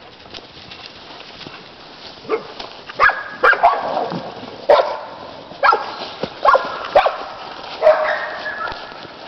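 Dog barking in a quick, irregular string of about eight loud barks, starting about two seconds in.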